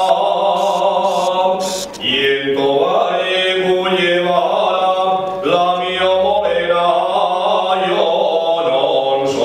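A man singing unaccompanied, holding long notes and sliding from one pitch to the next.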